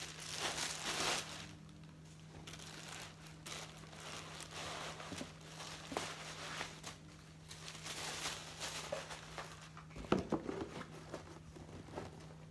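Packaging wrap crinkling and rustling in repeated bursts as sneakers are handled and unpacked from a cardboard shoebox, with a knock of the box near the end.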